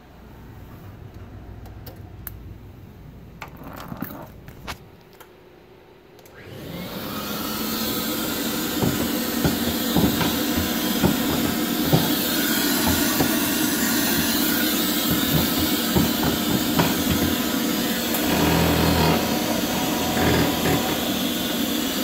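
Clarke L20 floor scrubber being switched on: a few clicks, then about six seconds in its motors spin up into a loud, steady whirring with a low hum, knocks and rattles over it.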